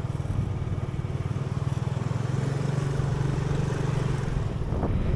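Engine of a moving road vehicle running at a steady speed, a low even hum mixed with road and wind noise.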